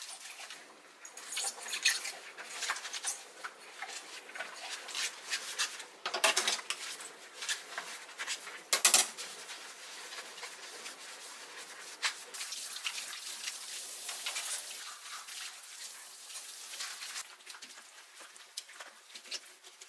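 Dishes being hand-washed in a stainless steel sink: a thin glass and wooden spoons and chopsticks clink and knock as they are scrubbed with a sponge in rubber-gloved hands, with a few sharper knocks. Later comes a stretch of steady scrubbing as the sponge is rubbed over the steel basin.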